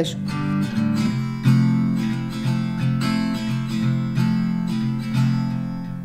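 Background music: acoustic guitar playing a gentle run of plucked and strummed chords.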